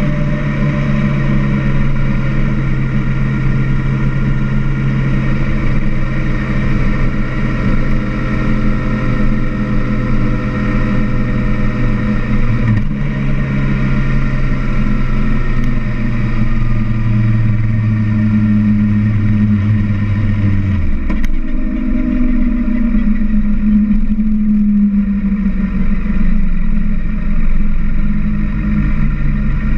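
Kawasaki ZZR-1200's inline-four engine running at steady cruising revs with wind rushing past the bike. About two-thirds of the way through, the engine note drops sharply and stays lower as the throttle is closed and the bike slows.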